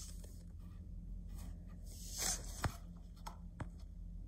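Light handling noises of fingers on a tablet screen: a few sharp taps and a short brushing scrape a little past two seconds, over a steady low hum.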